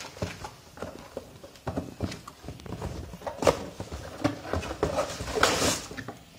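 Cardboard box handled and opened by hand: scattered taps and knocks on the carton, then a longer scrape and rustle of cardboard about five seconds in as the lid slides off.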